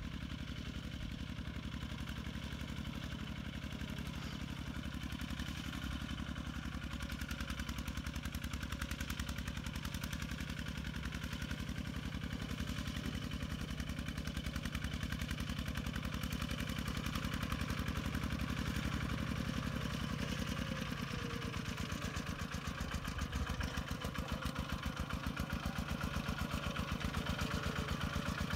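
Kubota RT120 single-cylinder diesel engine on a two-wheel walking tractor chugging steadily under load as it pulls a plow through wet mud. It grows gradually louder as the tractor draws closer.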